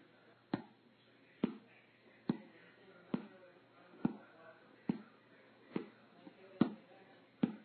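Cartoon footsteps: nine evenly paced single steps, a little more than one a second, over a faint hiss.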